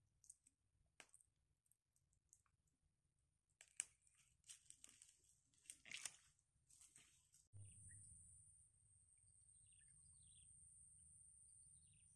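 Near silence with faint rustling and crackling of marsh grass and wet vegetation, and a few sharper ticks. About seven and a half seconds in, this gives way to a faint steady high-pitched whine.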